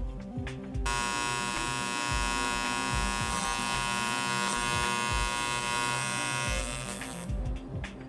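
TIG welding arc buzzing steadily, starting sharply about a second in and cutting off near the end.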